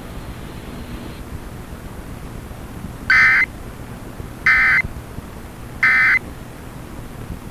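Three short bursts of Emergency Alert System (SAME) digital data tones, starting about three seconds in and spaced about a second and a half apart, over faint broadcast hiss: the end-of-message code that closes the severe thunderstorm warning alert.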